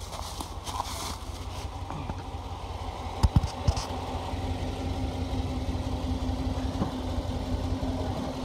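Ram Power Wagon's engine idling steadily, with a steady hum joining about three and a half seconds in. Two sharp knocks come a little over three seconds in.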